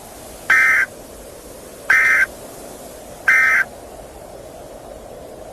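Emergency Alert System end-of-message signal: three short buzzy bursts of SAME digital data tones about 1.4 s apart, over a steady static hiss, marking the end of the alert.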